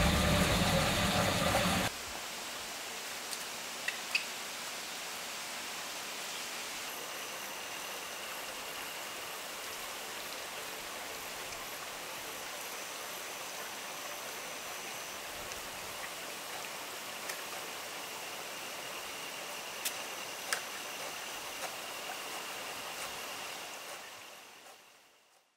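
Background music ends about two seconds in. It gives way to a steady, even rushing hiss of rural outdoor ambience, with a few faint clicks and a faint thin high tone in the middle part. The hiss fades out near the end.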